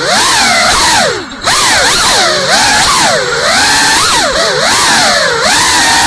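GEPRC CineLog 35 cinewhoop drone's brushless motors and ducted propellers whining, the pitch rising and falling quickly with the throttle and briefly dropping about a second in.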